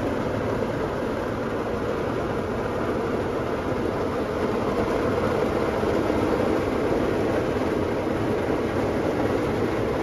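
Heavy rain drumming steadily on the roof and windshield of a Ford F-150 pickup, heard from inside the cab as a constant hiss and rumble that swells a little midway.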